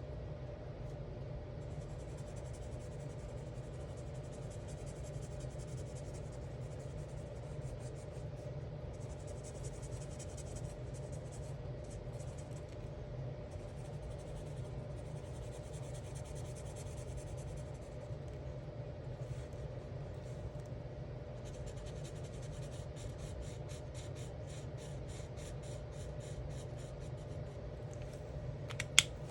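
Alcohol marker tip scratching across coloring-book paper in several stretches of quick back-and-forth strokes, over a steady low hum. A single sharp click near the end.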